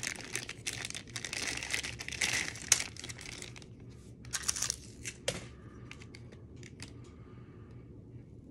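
Clear plastic bag crinkling and rustling as a small red dot sight is worked out of it. The crinkling is heaviest in the first few seconds, comes in a couple of short bursts around the middle, and then gives way to a few faint ticks of handling.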